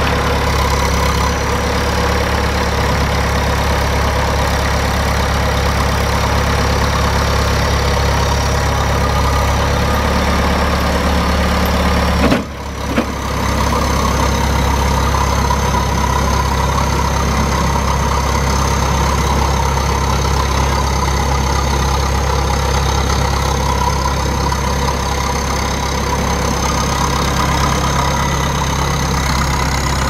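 Bomag 815-2 asphalt paver's Cummins four-cylinder diesel engine idling steadily, with a brief break about twelve seconds in.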